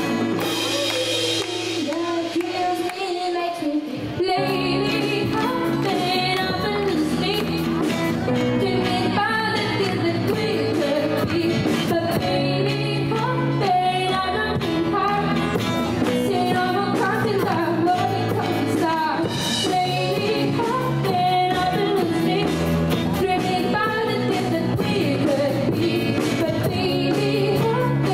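Live pop-rock cover by a small band: a young female lead vocal over acoustic guitar, piano, drums and percussion. The bass and low end drop out for the first few seconds, then the full band comes back in about four seconds in and plays on steadily.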